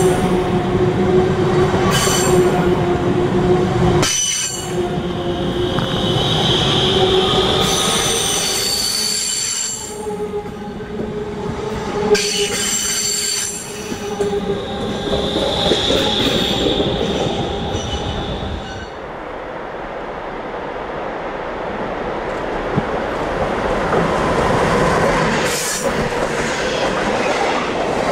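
A BLS RABe 535 'Lötschberger' electric multiple unit rolls slowly past with a steady hum, its wheels squealing in several bouts and clicking over rail joints. Near the end a long container freight train's rolling rumble swells as it passes.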